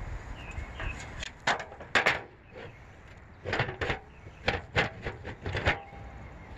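A string of sharp knocks and clanks, about ten in all in two clusters, from a steel drum lid being handled against the rim of a steel burn barrel.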